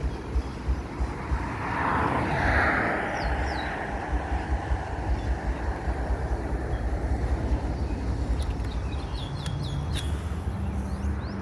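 Wind rumbling and buffeting on the microphone outdoors, with a swell of noise about two seconds in. Short high bird chirps come around three seconds in, and a quick run of sharp clicks follows near the end.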